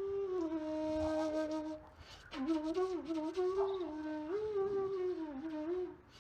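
Background flute music: a slow, wavering single melody line that breaks off briefly about two seconds in.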